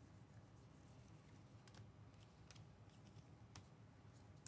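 Near silence: low room hum with a few faint clicks as trading cards are handled.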